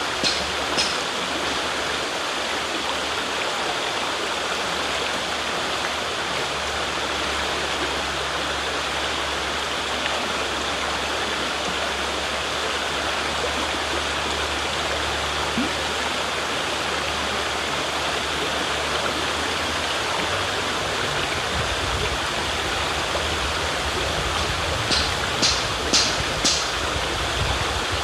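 River water flowing steadily, an even rushing noise. A few short, high clicks or chirps sound just after the start and again near the end, where a low rumble also rises.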